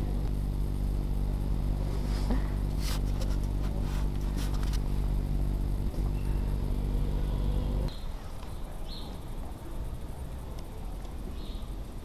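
A steady low mechanical hum, a motor or engine running, with a few light clicks over it. It cuts off abruptly about eight seconds in, leaving quieter outdoor ambience with a few short high chirps.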